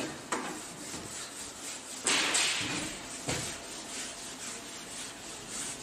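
Whiteboard duster wiping across the board in uneven rubbing strokes, loudest for about half a second near the two-second mark.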